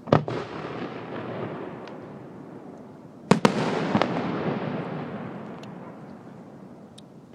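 Two aerial firework shells bursting about three seconds apart, each sharp bang trailing off into a long, slowly fading rumble; a few faint pops in between.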